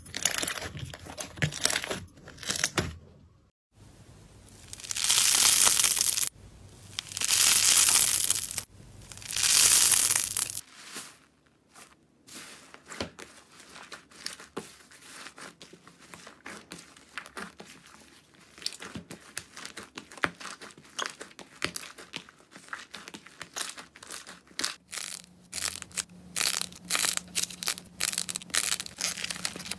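Slime squeezed and kneaded by hand, crackling and squelching. Three long, loud squelches come a few seconds in, then a steady run of fine crackles and small pops as foam-bead slime is pressed.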